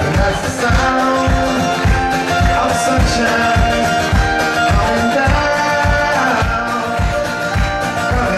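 Live acoustic duo: two acoustic guitars strummed in a steady, upbeat rhythm with singing over them.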